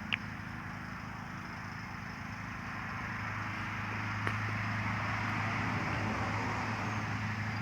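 Outdoor background noise: a steady low hum under a hiss that grows louder from about three seconds in, with a faint click near the start and another about four seconds in.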